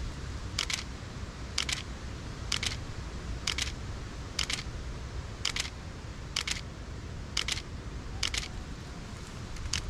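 Nikon D700 DSLR shutter firing about once a second, ten releases in a row, each a quick double click of mirror and shutter: a handheld series of frames for a focus stack.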